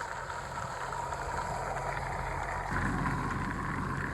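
A vehicle engine running steadily, its hum growing louder about three seconds in.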